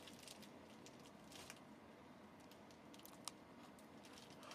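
Near silence: faint background hiss with scattered light clicks and crackles, one sharper tick about three seconds in.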